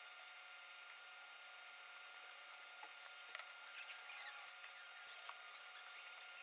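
Faint, scattered clicks and light scratching of small parts being handled by hand, over a steady hiss; the clicks are busiest in the second half.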